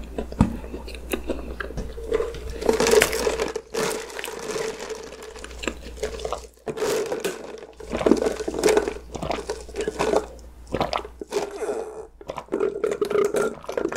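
Close-miked mouth sounds: chewing a mouthful of chocolate cake, then sipping a drink through a straw several times and swallowing.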